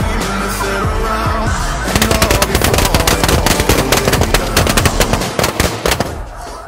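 A rapid volley of shotgun shots, many in quick succession, starting about two seconds in and lasting about four seconds, fired at snow geese flying overhead.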